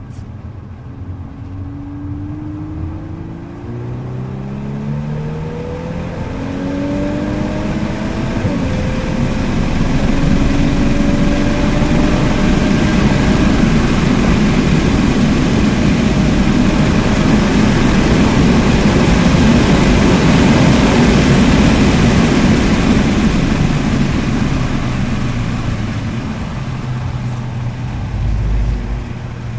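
Mk8 Golf R's turbocharged four-cylinder engine at full throttle, heard from inside the cabin, its revs climbing in steps through several upshifts. Then a loud, steady rush of wind and road noise at about 100 mph, which eases near the end as the car brakes.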